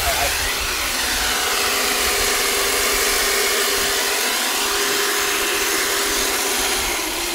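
Portable electric winch motor running steadily as it spools its cable, a continuous hum over a hiss that breaks briefly about halfway through.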